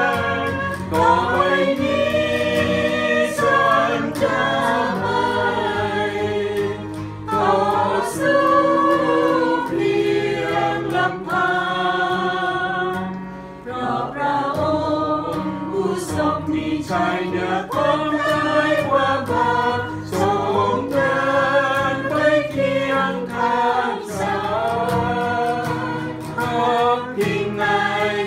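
A small group of men and women singing a Thai Christian worship song together, accompanied by a strummed acoustic guitar, with a short break between lines about 13 seconds in.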